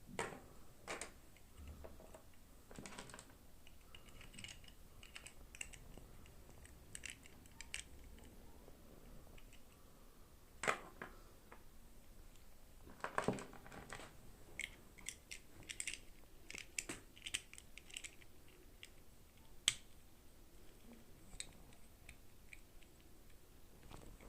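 Faint, irregular clicking, tapping and rustling from hands handling small plastic toy packaging and miniature dolls during unboxing, with a few sharper clicks now and then.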